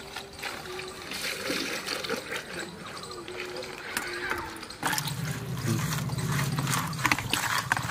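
Water splashing and sloshing as cut climbing perch are rinsed in a basket and a steel bowl of water. About five seconds in, hands swish water in the steel bowl and a steady low hum comes in beneath the splashing.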